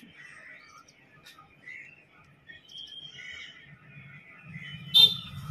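Faint, scattered chirps of small birds in the background, with a brief sharp sound near the end.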